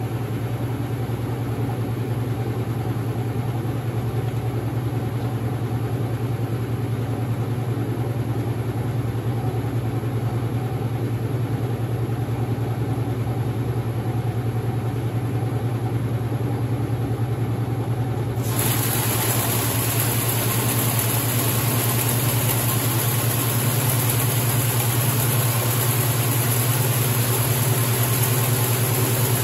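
A late-1970s Maytag A806 top-load washer running with a steady low hum. About 18 seconds in, a loud rushing hiss sets in suddenly and carries on alongside the hum.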